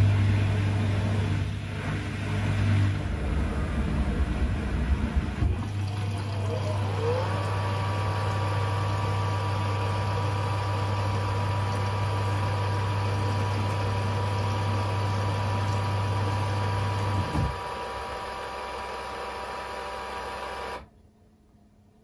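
Bosch Series 6 i-DOS washing machine running with its drum turning: a steady low hum, joined about seven seconds in by a motor whine that rises and then holds steady. The hum stops at about seventeen seconds, and the sound cuts off suddenly near the end.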